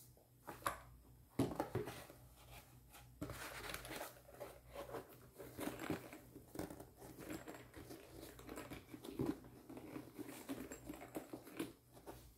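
Handling noise from a semi-rigid camera carrying case being closed and turned over in the hands: irregular rustling and scraping with several sharp knocks, the loudest about a second and a half in.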